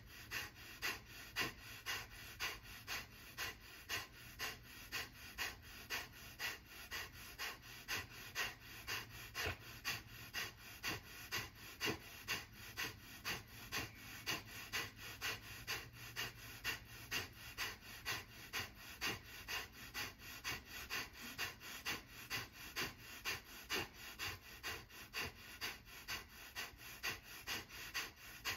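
Kapalbhati breathing: a steady run of short, forceful exhalations through the nose, a little under two a second, each a quick puff of breath.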